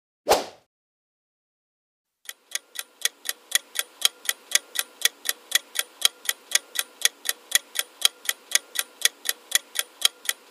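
Clock-tick countdown timer sound effect: even, sharp ticks at about four a second, starting a little over two seconds in. Just after the start there is one brief sound effect on its own.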